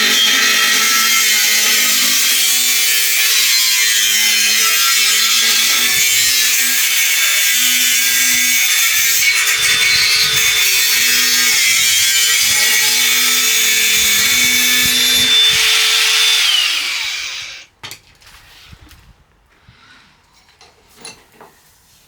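Power tool cutting through the end of a steel exhaust pipe, running steadily with a high hiss and motor whine, then winding down and stopping about 17 seconds in. A few faint knocks follow.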